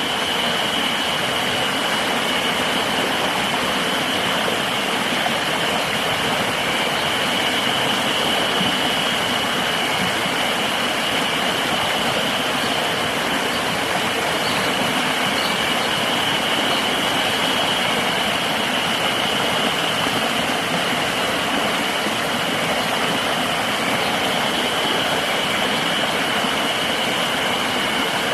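River water rushing steadily, with a continuous high insect drone held on one pitch above it.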